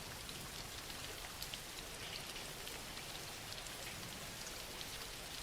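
Steady soft rain falling, an even hiss with faint scattered drop ticks.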